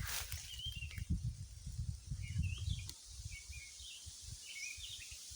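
Small birds chirping: short, high chirps repeated at irregular intervals, over a low rumbling that dies away about three seconds in.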